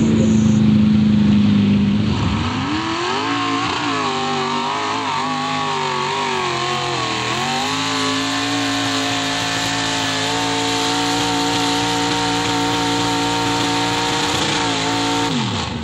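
Mud-bog 4x4 truck engine running hard through a mud pit: the revs rise and fall for several seconds, then hold high and steady before dropping off near the end.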